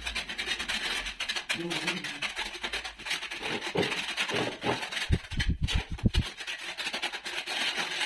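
Trowel scraping cement tile adhesive across the back of a large tile: a continuous rough scraping of quick strokes. A quick run of low knocks comes about five seconds in.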